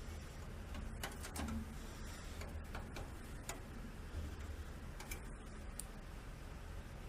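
Scattered light clicks and taps of a screwdriver and metal and plastic parts as screws are fitted to a card reader's mounting in a PC case, over a low steady hum.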